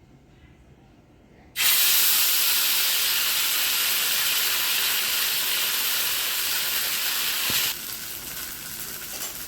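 Moong dal batter sizzling in hot oil in a pan: a loud hiss starts suddenly about a second and a half in, then drops to a quieter steady sizzle about six seconds later.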